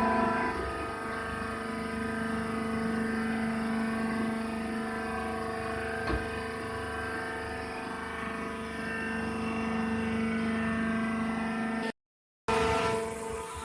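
Hydraulic baler's pump and motor running with a steady, even-pitched hum, with one click about six seconds in; the sound cuts out for about half a second near the end.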